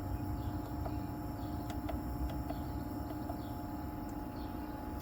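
Inverter running after finally starting up, giving a steady hum with a low tone and a higher tone held constant, plus a few faint clicks.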